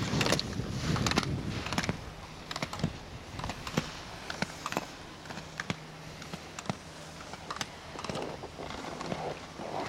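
Skis carving and scraping on hard snow, louder in the first two seconds, with many irregular sharp clicks and clacks.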